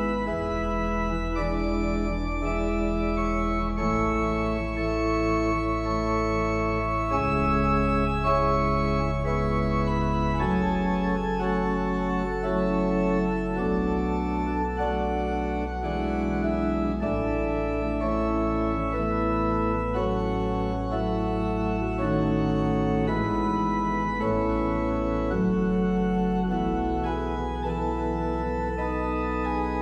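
Church organ playing slow, sustained chords on the manuals over deep pedal bass notes held for several seconds at a time, the harmony shifting every second or two.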